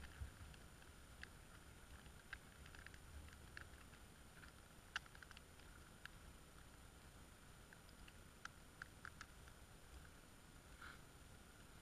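Near silence: a faint low rumble with a few scattered faint ticks.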